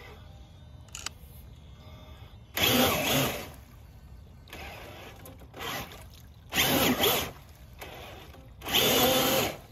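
Traxxas TRX4 Bronco RC crawler's 1412 3200KV brushless motor and tyres in four short bursts of throttle. The wheels churn water and wood against a log without the truck climbing it, and a creek trickles steadily between the bursts. The truck is losing power, which the owner blames on creek water getting into the electronics.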